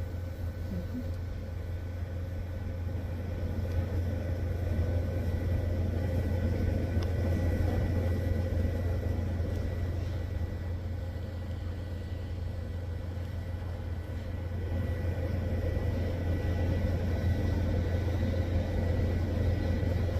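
TIG welder at work on thin 1.5 mm pipe: a steady low electric hum with a faint high whine, unbroken throughout.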